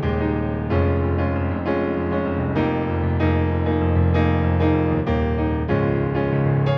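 Yamaha P-125A digital piano playing a slow chordal passage: chords struck about once or twice a second over long-held low bass notes.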